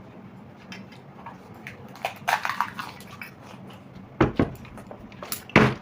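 Short knocks and clatters of objects on a hard surface, a quick run of light clicks a couple of seconds in, then two heavier thuds about four and five and a half seconds in.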